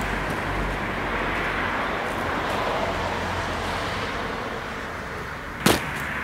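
Steady outdoor background noise, a low rumble and hiss, with one sharp click near the end.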